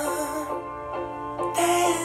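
Background music: held notes in chords that change about every half second.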